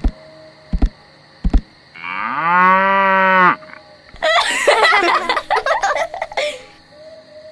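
A cow moos once for about a second and a half, after three heavy thumps in the first second and a half. A louder, rough, noisy jumble of sound follows for about two seconds.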